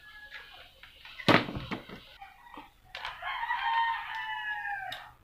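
A sharp knock about a second in, then a rooster crowing once: one drawn-out call of about two seconds that sags in pitch at the end.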